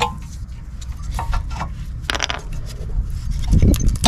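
Rear brake caliper being worked off its carrier and over the worn pads by hand: scattered light metallic clicks and scrapes, getting louder about three and a half seconds in.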